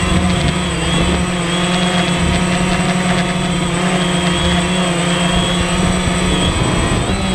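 DJI Phantom quadcopter's electric motors and propellers whirring steadily in flight, heard up close from the camera mounted on the drone. The pitch wavers briefly near the end.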